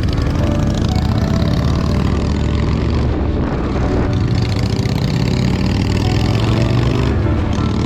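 Motorcycle engine running at a steady loud level, its pitch rising near the end as it accelerates.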